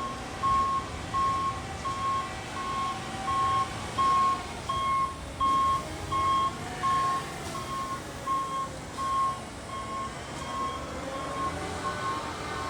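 Concrete mixer truck's reversing alarm beeping about twice a second as the truck backs up, over the low running of its diesel engine. The beeps grow weaker in the last few seconds.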